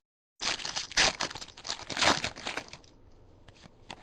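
Foil trading card pack wrapper being torn open and crinkled, a dense crackling that is loudest about one and two seconds in, then tapers to faint scattered rustles.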